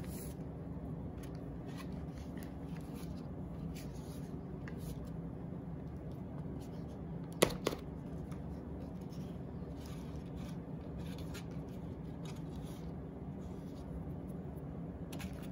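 Soap scraps being grated on a handheld box grater: soft, repeated scratchy rasps at irregular intervals, over a low steady hum, with one sharp click about halfway through.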